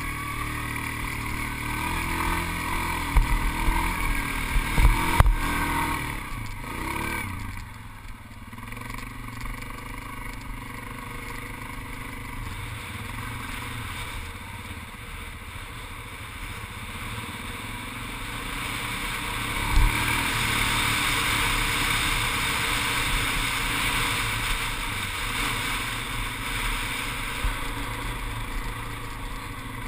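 ATV engine running under throttle while riding over sand, with a few sharp knocks from the machine jolting over bumps in the first several seconds. The engine eases off about eight seconds in and pulls harder again from about twenty seconds, with one more knock as it picks up.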